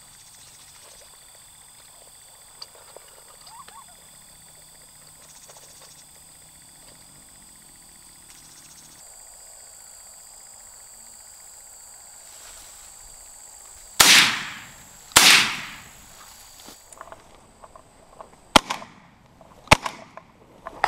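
Two shotgun shots about a second apart, each with a ringing tail across the open field, followed a few seconds later by two shorter, sharp cracks. Steady high insect trilling runs underneath before the shots.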